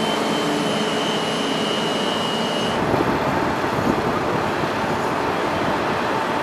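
Steady mechanical noise, a broad hiss and rumble with faint steady tones, that changes character abruptly about three seconds in.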